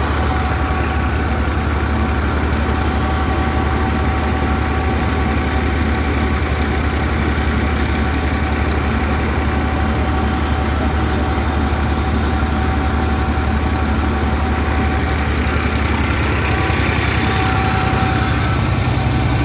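Massey Ferguson tractor engine running steadily, driving a PTO thresher that is threshing pearl millet, with the thresher's drum and fan adding a steady higher tone over the low engine hum. The low engine note shifts up near the end.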